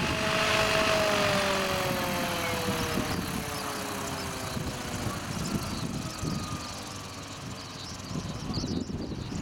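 Radio-controlled model helicopter on the ground winding down after landing. Its motor and rotor whine falls slowly in pitch and fades over several seconds, leaving faint wind noise.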